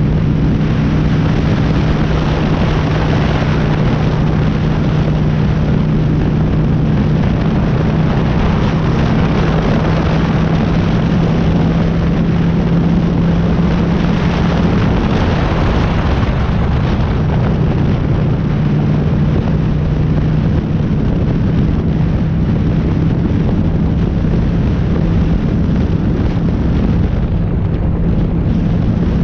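Honda Shadow cruiser motorcycle's V-twin engine running steadily while riding, under a constant rush of wind on the helmet-mounted microphone.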